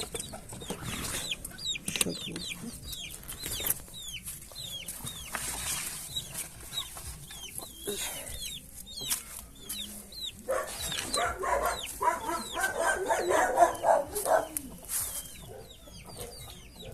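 Chickens clucking, with many short high peeps throughout and a louder, choppy run of clucking from about ten to fifteen seconds in.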